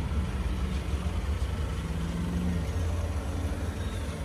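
1997 Mercedes-Benz C230's 2.3-litre four-cylinder engine idling, a steady low rumble.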